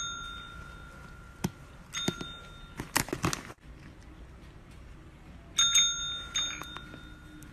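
A kitten presses a tabletop service bell with its paw, and it rings several times: at the start, about two seconds in, and again about five and a half seconds in. Each ding rings on and fades. A burst of quick knocks comes around three seconds in.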